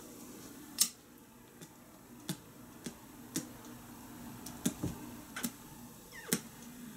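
Scattered sharp clicks and small taps, about nine spread unevenly over several seconds, from handling a lighter while lighting a cigar.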